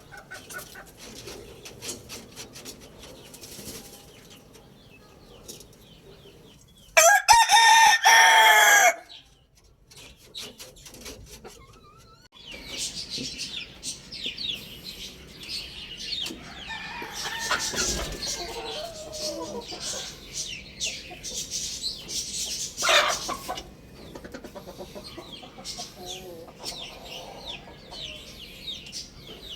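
A rooster crows once, about seven seconds in, a loud call lasting about two seconds. After it, chickens cluck amid a busy chatter of high, quick chirps from small birds, with one short sharp call near the end.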